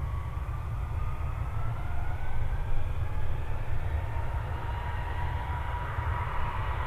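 Airbus A320 jet engines spooling up as the airliner begins its takeoff roll: a rising whine over a steady low rumble, growing louder toward the end.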